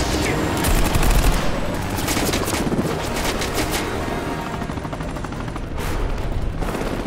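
Rapid automatic rifle fire from a helicopter, volleys of shots over the steady noise of helicopter engines and rotors, most dense in the first few seconds.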